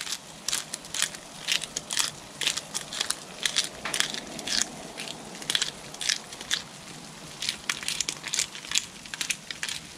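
Hand-held spice grinder being twisted to grind Italian seasoning, a run of crunchy, irregular clicks a few times a second.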